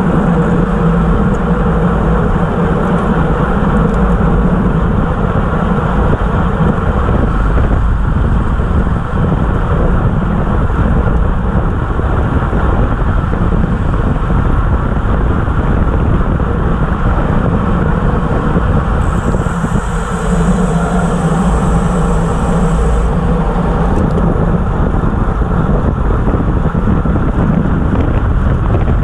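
Steady rush of wind over the microphone of a camera mounted on a road bike at racing speed (about 25–30 mph), mixed with tyre noise on asphalt. A thin high whistle rises above it for a few seconds about two-thirds of the way through.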